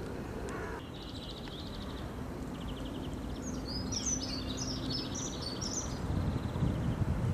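Small songbirds singing: rapid high trills and chirps, busiest around the middle, over a steady low background noise.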